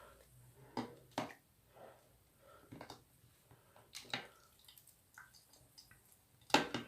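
Soapy water squishing and dripping in short, scattered bursts as a smartphone and its stylus are rubbed clean by hand. The loudest burst comes near the end.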